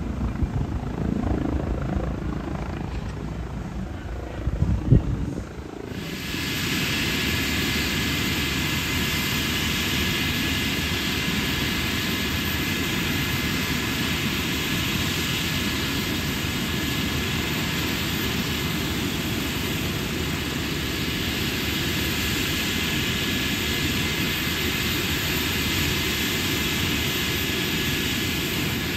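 Medical helicopter running on the ground: a steady rushing turbine hum with a thin high whine, starting suddenly about six seconds in. Before that, a low uneven rumble with a sharp knock near five seconds.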